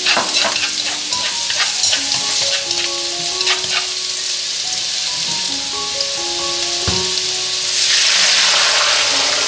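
Chopped scallion and crushed white peppercorns sizzling in hot oil in a wok, stirred with chopsticks that tap now and then, with a single knock about seven seconds in. Near the end, hot stock poured into the hot wok sets off a loud, swelling rush of hissing.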